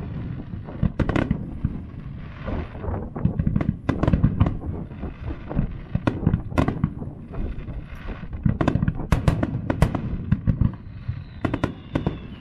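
Aerial firework shells bursting in quick succession: a rapid, uneven string of sharp bangs with stretches of crackle between them.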